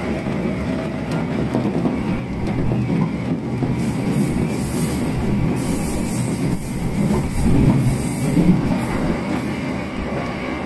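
Electric commuter train running at speed, heard from inside the carriage: a steady rumble of wheels on the rails, with a higher hiss that comes and goes from about four to nine seconds in.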